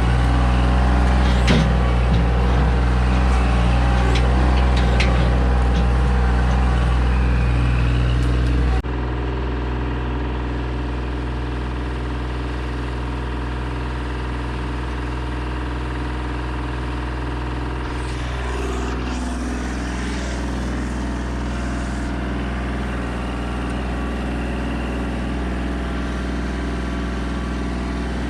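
Chainsaw on an Alaskan chainsaw mill running steadily as it rips along a cherry log. Its sound drops abruptly in loudness about nine seconds in, then carries on evenly.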